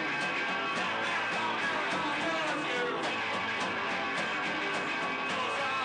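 Rock music with guitar, playing steadily at an even level.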